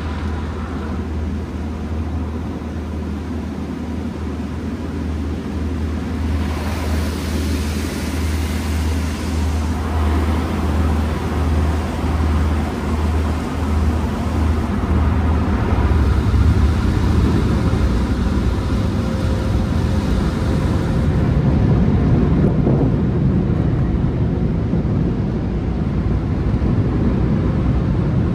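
Automatic car wash tunnel heard from inside the car: a steady low hum of the machinery, with two spells of water spray hissing against the glass, and a low rumble that grows louder near the end.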